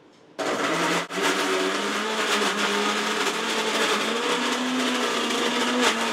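Philips mixer grinder's motor running at full speed, grinding raw chicken breast into keema in its steel jar: a steady whine with a churning rush. It switches on about half a second in, cuts out for an instant about a second in, then runs on steadily.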